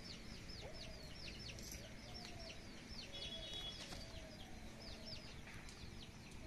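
Birds chirping outdoors: a continuous run of short, high, falling chirps, several a second, with a few fainter, lower calls underneath.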